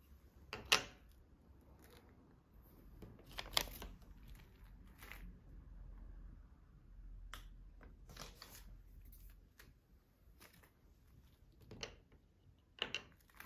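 Small plastic toy skateboard being handled and set down on a hard tabletop: a scattering of sharp clicks and taps, about ten over the span, with faint rustling of hands between.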